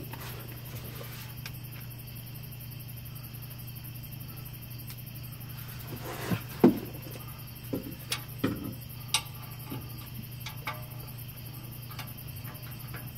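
Scattered clicks and knocks of hand tools against the exhaust under a car while a new muffler is fastened, over a steady low hum. The sharpest knock comes about halfway through, with a few lighter ones after it.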